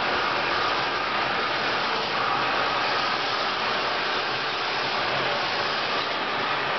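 Model trains running on a model railway layout: a steady whir from the locomotives and wheels rolling on the track.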